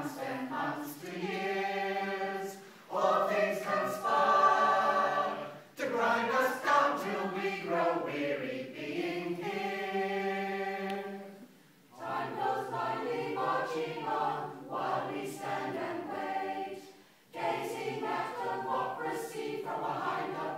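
Choir singing, its sung phrases broken by short pauses about every five to six seconds.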